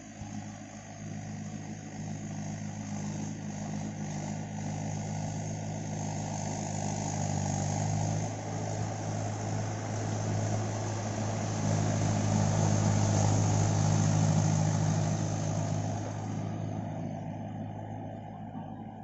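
Mahindra tractor's diesel engine running steadily while ploughing, growing louder as it comes closer, loudest about three-quarters of the way through, then fading as it moves away.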